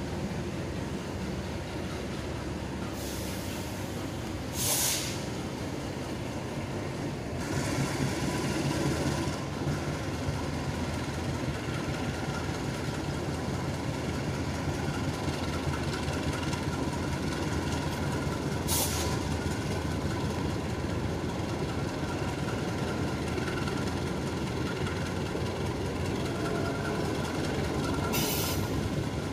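Passenger train carriage rolling out of a station, running steadily with a low rumble. A few brief high-pitched hisses break in, about four seconds in, around eight seconds, near the middle and near the end.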